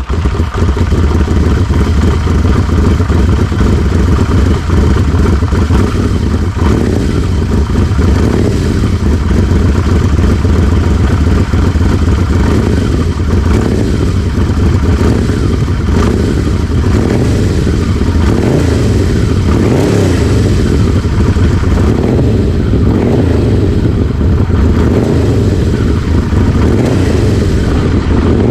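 Yamaha V-Max 1200's V4 engine running through a Supertrapp slip-on muffler, with a deep, steady exhaust note right after starting up.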